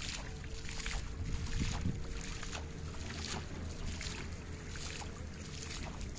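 Repeated splashes in shallow water, about one or two a second, as a hand scoops and throws water onto a fishing net held at the surface. A low wind rumble on the microphone runs underneath.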